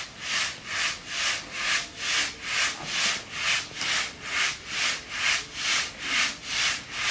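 Wheat grain swishing and rattling in a wooden-framed sieve that two men shake back and forth, in an even rhythm of about two strokes a second. The wheat is being sieved before sowing, to separate clean seed from chaff and clods.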